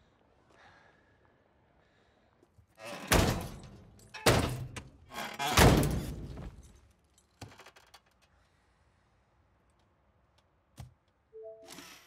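Three loud, heavy thuds a little over a second apart, each fading out over most of a second, followed by a few faint clicks.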